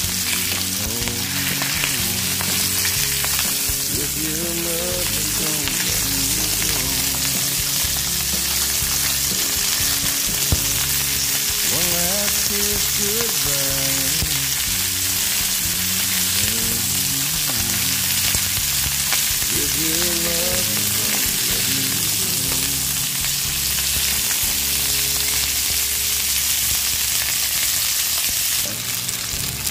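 Salmon fillets frying in oil on a grill pan, a steady sizzle, with a song playing in the background.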